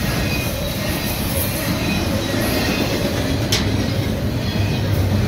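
Double-stack container well cars of a freight train rolling past: steady rumble of steel wheels on the rails, with faint high wheel-squeal tones. A single sharp click comes about three and a half seconds in.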